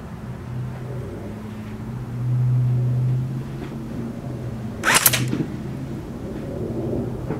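Jing Gong G36 airsoft electric gun firing a short burst of BBs about five seconds in, a quick sharp clatter over a steady low hum.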